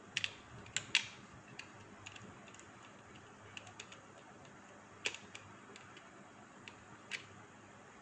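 Small plastic clicks and ticks from a cable-adapter storage box as an adapter tip is worked loose from its slot in the tray: a cluster of sharp clicks in the first second, scattered lighter ticks, then two more distinct clicks about five and seven seconds in.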